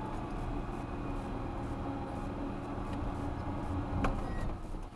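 Chevy S10 pickup's engine running steadily under load as the truck pushes its snow plow into a snow berm, heard from inside the cab. A single sharp knock comes about four seconds in.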